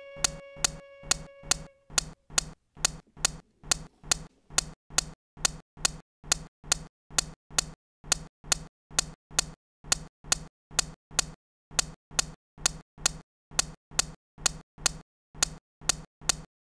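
Steel balls of a Newton's cradle clacking at a steady pace, about two and a half clicks a second. A held violin note fades out about two seconds in.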